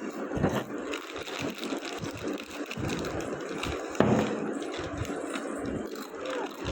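Potato chips being crunched and chip packets crinkling during fast eating, a busy run of irregular crackles and clicks with a sharper crackle about four seconds in.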